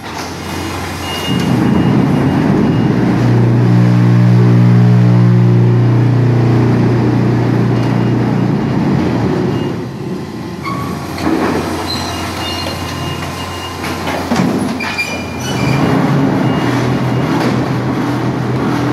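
Automatic wooden-pallet feeder and conveyor of a concrete block production line running: a loud steady machine hum with stacked tones for several seconds, then knocks and clatter in the second half as the gripper lifts and sets down wooden pallets.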